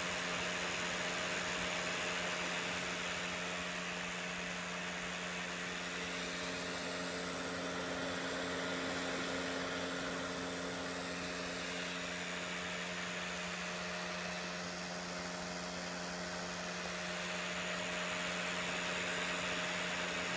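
Plug-in wall-outlet space heater's built-in fan running steadily: an even whir of blown air over a constant electric motor hum.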